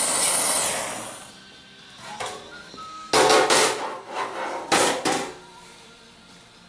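Oxy-acetylene welding torch hissing steadily, dying away about a second in. Then a few loud metallic knocks and clatters, the middle ones longest, with a brief ring.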